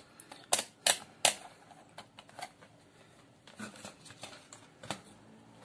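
Rotary range selector of a digital capacitance meter clicking three times as it is turned, about half a second apart. Lighter taps and rustles of test probes being handled against a circuit board follow.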